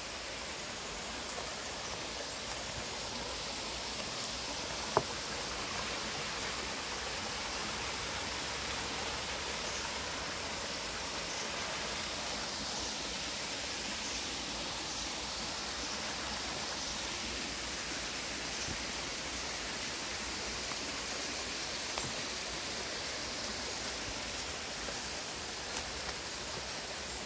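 Mini waterfall on a jungle stream: a steady rush of falling, splashing water, with one sharp click about five seconds in.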